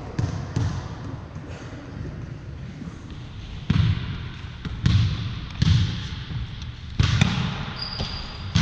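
Irregular thumps and slaps on a hardwood gym floor during indoor volleyball play: footsteps and volleyball hits, about five of them in the second half, with a short high squeak near the end.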